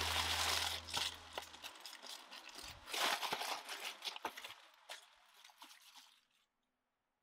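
Plastic bag crinkling and rustling as hands press and smooth it, with a few small clicks; the crinkling dies away about six seconds in.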